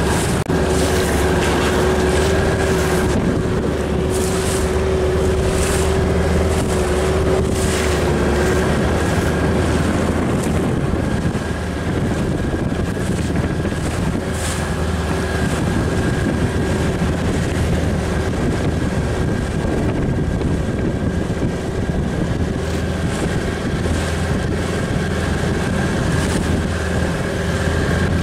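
Small outboard motor on an inflatable dinghy running steadily under way, with wind buffeting the microphone.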